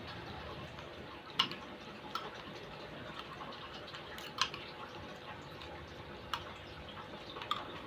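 A spoon clinking against the bowl a handful of times, at uneven intervals, while the soto noodle soup is being stirred. Underneath is a faint steady hum.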